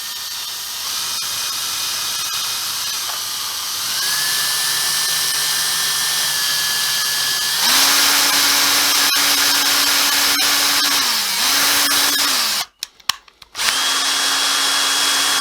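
Small electric drill with a 2 mm bit drilling out the metal rivet of an old Hornby tension-lock coupling. The motor whine steps up in speed twice, dips and stops about twelve seconds in, gives a couple of short bursts, then runs steadily again near the end.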